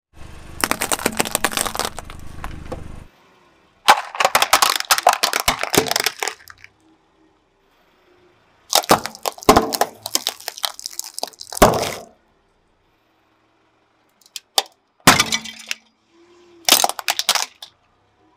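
A car tyre rolling over and crushing a series of objects, starting with walnut shells cracking and later plastic spring toys. It comes as about five separate bursts of crunching, cracking and breaking, with silent gaps between.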